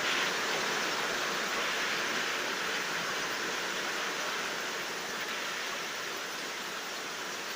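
Steady rain falling, an even hiss with no thunder and no separate drips or knocks standing out.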